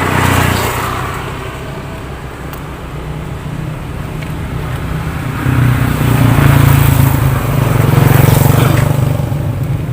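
A motor engine running steadily with a low hum, growing louder from about halfway through and easing off near the end.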